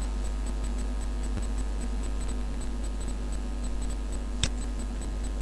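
Steady low electrical hum with an even hiss from the recording setup, and a single sharp click about four and a half seconds in.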